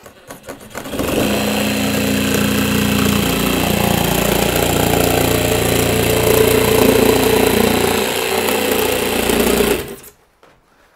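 Reciprocating saw with a metal-cutting blade plunging into and cutting through foil-faced polyiso rigid foam board. It starts about a second in, runs steadily and loud for about nine seconds, then stops abruptly.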